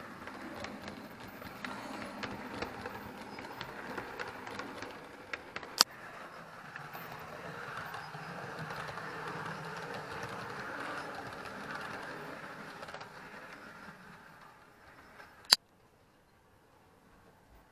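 Bachmann OO gauge model Virgin diesel unit running along the layout track: a steady motor whir and wheel rattle with many small clicks. There is a sharp loud click about six seconds in and another near the end, when the running sound stops.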